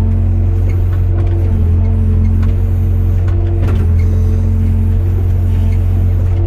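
Hyundai 02-class hydraulic excavator running: a steady low diesel drone, with a hydraulic whine whose tones switch on and off and shift as the controls are worked, and a few light knocks from the machine.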